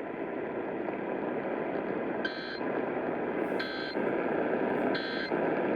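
Emergency Alert System end-of-message data signal: three short, identical bursts of warbling digital tones about a second apart, closing the test broadcast. A steady hiss runs beneath them.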